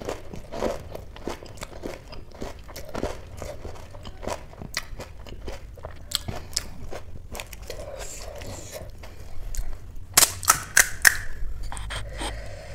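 Close-miked chewing and crunching of panipuri, crisp puri shells filled with spicy water, with wet mouth sounds. A little past ten seconds comes a quick run of loud, crisp cracks.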